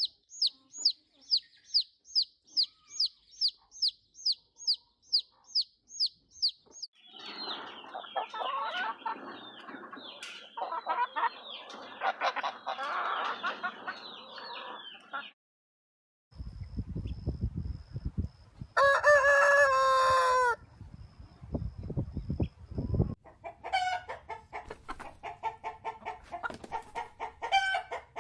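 A run of chicken calls. First, rapid high peeping at about three calls a second, then a flock of hens clucking. Then a rooster crows once over a low rumble, and hens cluck again near the end.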